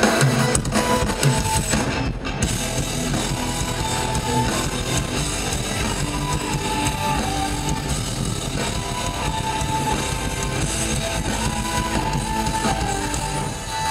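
Loud rock music with electric guitar and drums playing through a festival stage PA, heard from the crowd.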